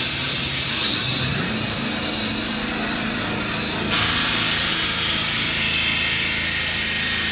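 CNC metal spinning machine running: a steady high hiss over a low hum, which suddenly gets louder and brighter about four seconds in.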